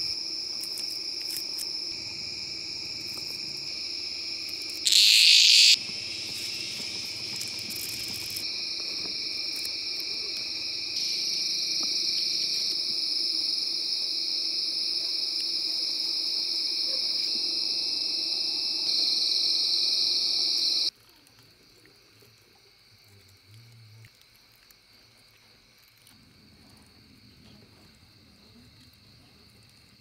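Night insect chorus: a steady, high-pitched chirring of crickets and other insects. A brief louder burst comes about five seconds in. About two-thirds of the way through the chorus cuts off abruptly to near silence.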